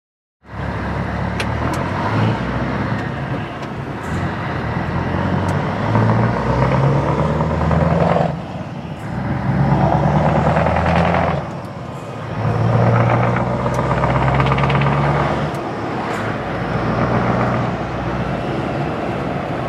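Scania 164 L 480's 16-litre V8 diesel engine pulling away and accelerating through the gears, heard from inside the cab. The engine note climbs and drops back briefly at each gear change, about eight, twelve and sixteen seconds in.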